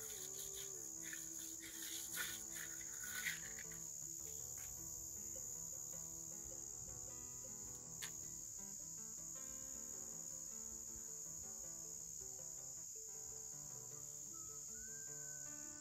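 Crickets chirping in a steady, continuous high-pitched trill.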